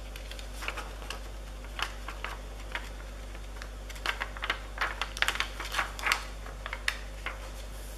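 Light, irregular clicks and ticks of fingernails on a plastic sheet of small silver star embellishments as they are picked off and pressed onto a paper card, coming thickest a few seconds in.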